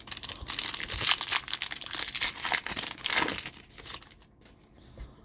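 Trading-card pack wrapper crinkling and crumpling in the hands, with some tearing, for about four seconds before it dies away.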